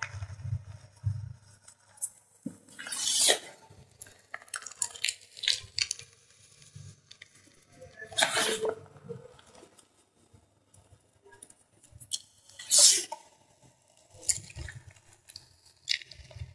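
Fingertips crushing thin pieces of gym chalk into powder: irregular crisp crunches and crackles, loudest about three, eight and thirteen seconds in, with softer powdery crackling between.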